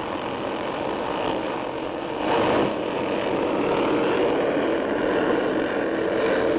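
Engines of a pack of 500 cc Formula III racing cars running together in a steady drone as the field accelerates away from the start, swelling briefly a little after two seconds in.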